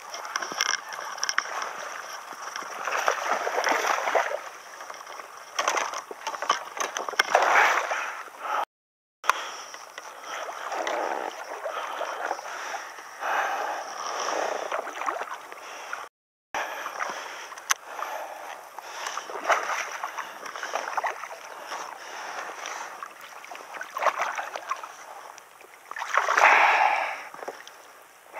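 Water splashing and sloshing in irregular bursts as a hooked largemouth bass is fought to the surface. The loudest splash comes near the end, as the fish is lifted out of the water.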